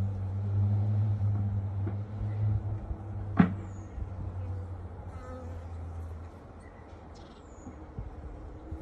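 Honeybees buzzing close by as a low, steady hum that fades away over the first half. A single sharp click comes about three and a half seconds in, and a few short, high bird chirps are heard.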